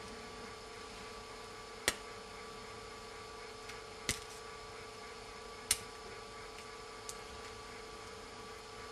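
A few sharp little clicks, one to two seconds apart, from fingers handling an iPhone's plastic front frame while pressing its adhesive tape down, over a steady faint hum.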